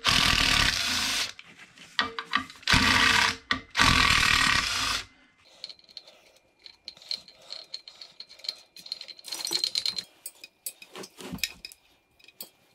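Cordless driver running in three short bursts, backing bolts out of a jet ski engine. It is followed by light scattered clicks and clinks of bolts and metal parts being handled.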